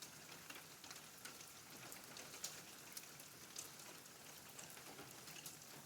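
Near silence with a faint, scattered patter of water drops.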